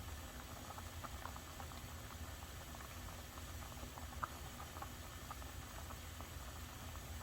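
Pot of soup or stew bubbling, with small irregular pops of bursting bubbles over a low steady hum.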